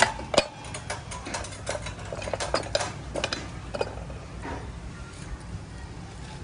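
Light metallic clicks and clinks of a motorcycle's drum-brake panel and cam lever being handled and seated on the wheel hub, with two sharper knocks at the start.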